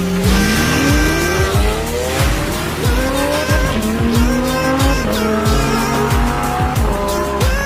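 Sports car engine revving up and accelerating, its pitch rising in a long climb and then in several shorter rises, over background music with a steady beat.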